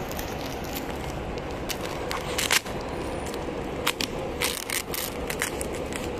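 Plastic packaging wrap crackling and tearing as it is pulled off a cardboard shipping box, in irregular crackles with the loudest about two and a half seconds in.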